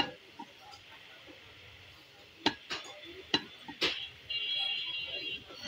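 Heavy cleaver chopping beef on a wooden log chopping block: a chop at the start, then four sharp chops in quick succession a few seconds in. From about four seconds in, a high, fluttering electronic alarm-like tone sets in and keeps going.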